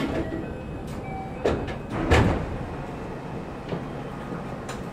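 Several knocks and clunks, the loudest about two seconds in, over the steady hum of a commuter train standing at a station.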